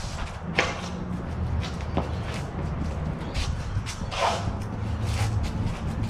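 Sparring footwork scuffing and shuffling on the ground, with quick swishes of practice blades and a couple of sharp knocks about half a second and two seconds in, over a steady low rumble.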